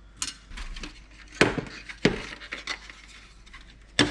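Small metal and plastic parts of a receipt printer clinking and knocking as it is taken apart by hand: a few separate sharp clinks, then a louder clatter at the end.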